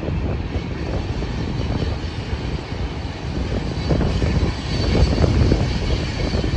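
Double-stack container freight train rolling past at a distance: a steady low rumble of diesel locomotives and cars, getting louder about four seconds in as a set of locomotives comes by.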